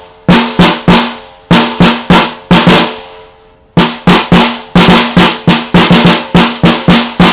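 Snare drum struck in a rhythmic tune pattern, about two dozen hits in short groups with brief pauses between them. Each stroke leaves a pitched, ringing tone, the 'bad snare sound' of a poorly dampened snare.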